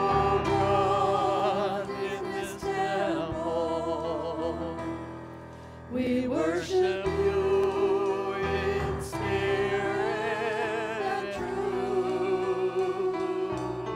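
Singing in a synagogue service, with long held notes that waver in pitch and a steady low backing; it grows softer about four seconds in and picks up again about six seconds in.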